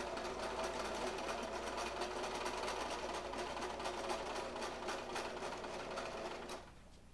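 Brother electric sewing machine running steadily, stitching rapidly through thick canvas with the presser foot raised while the fabric is pulled through by hand. The motor stops abruptly about six and a half seconds in.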